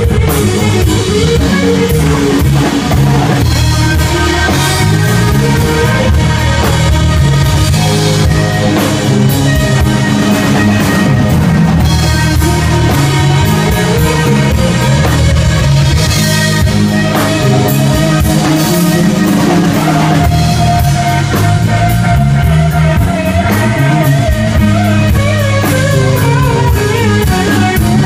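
Live rock band: an electric guitar plays lead lines with bent notes over a drum kit, loud throughout.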